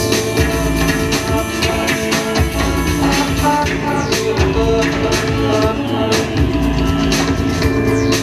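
Live music played on electronics: held keyboard-like tones over a steady beat.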